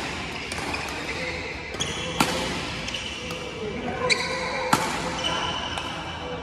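Sharp cracks of a Yonex Nanoray Z Speed badminton racquet striking a shuttlecock, a few shots a couple of seconds apart, ringing in a large hall. Short squeaks of court shoes fall between the shots.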